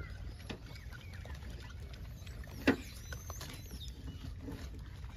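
Gray langurs picking dates out of a cardboard box, with light rustling and small clicks, a few faint bird chirps and a steady low rumble. One sharp knock about two and a half seconds in is the loudest sound.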